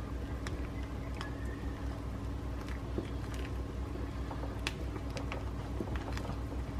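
Thick mushroom pepper gravy simmering in a saucepan, popping and plopping at irregular moments while a spatula stirs through it as it cooks down to thicken. A steady low hum runs underneath.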